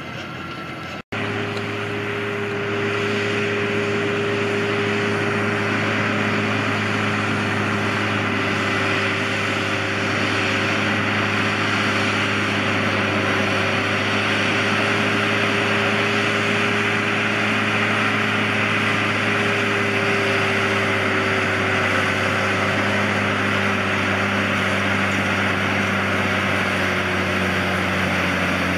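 New Holland T7050 tractor's six-cylinder diesel engine running steadily under load as it pulls a Kaweco Thorium 45 loader wagon, with a constant rushing noise from the wagon's pickup and rotor taking in the grass swath. There is a brief gap about a second in, and the sound is a little louder after it.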